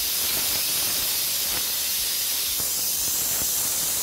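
Pressure cooker venting steam through its whistle valve in a steady hiss, a sign that it is at full pressure while the dal cooks.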